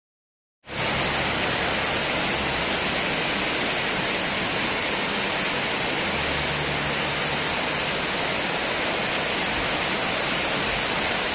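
Heavy rain pouring down, a steady even hiss that cuts in abruptly just under a second in.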